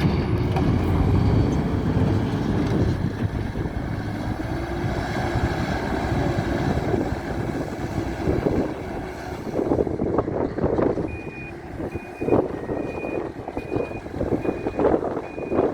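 Hidromek 102B Supra backhoe loader's diesel engine running, its pitch rising and falling. In the second half its reversing alarm beeps steadily, roughly once a second, over the engine and a few sharp knocks.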